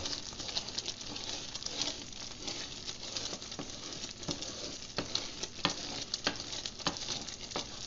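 Butter, milk and sugar syrup at a hard, foaming boil in a pot, bubbling and spitting while a wooden spoon stirs and scrapes through it. Scattered sharp clicks come through, more of them in the second half.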